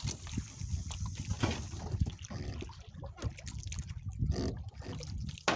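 Water sloshing and trickling at a small boat's side, with scattered small clicks and knocks from hands working fishing line and tackle.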